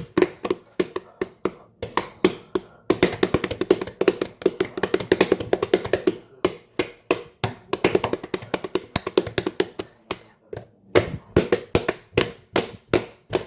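Close-up chewing and mouth smacking of someone eating a piece of slime: a quick, uneven run of clicks and taps, several a second, with a short pause about two-thirds of the way in.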